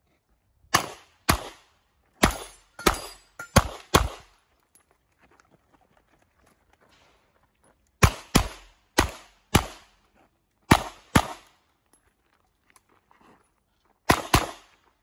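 Revolver fired rapidly in an IPSC stage: six shots in about three seconds, a pause of about four seconds, six more shots, then another pause and a fresh string of shots near the end. Each shot is a sharp crack with a short echo trailing off.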